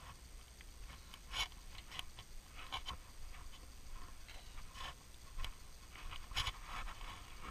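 Footsteps on a wooden boardwalk: irregular knocks and scuffs every second or so, with the loudest steps about a second and a half in and near the end.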